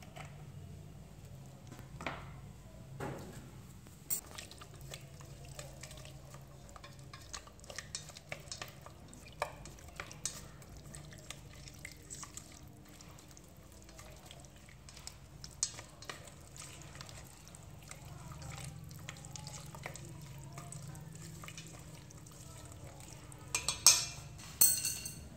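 Chopped eel pieces and spices being stirred in a stainless steel pot with a wooden utensil, making many small wet clicks and scrapes against the metal. A few louder clatters come near the end.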